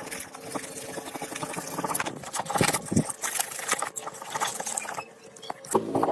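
Hand work on metal parts: a dense, irregular run of clicks, taps and scrapes.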